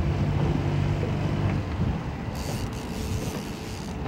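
A motorboat engine hums steadily, fading out about a second and a half in, with wind rushing on the microphone throughout.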